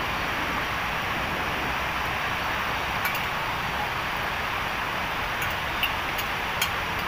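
Steady outdoor hiss at night, with a few short sharp clicks and a brief clink, one about three seconds in and several near the end.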